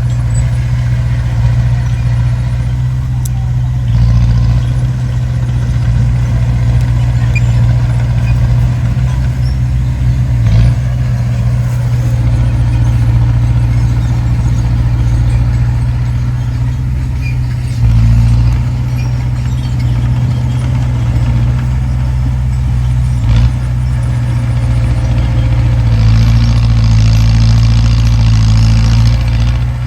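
Heavy diesel engine of earthmoving machinery running steadily with a deep, continuous hum, shifting in level a few times and joined by a brighter hiss near the end.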